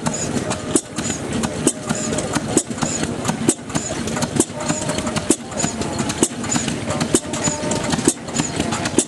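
Fairbanks-Morse Model Z stationary gas engine running, with a sharp firing bang just over once a second and lighter clicks of its valve gear in between.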